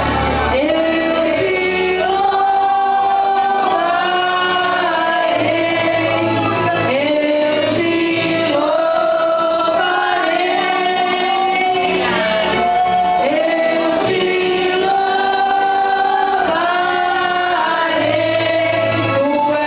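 Gospel worship song: a group of voices singing a slow melody with long held notes over an instrumental backing with a steady bass.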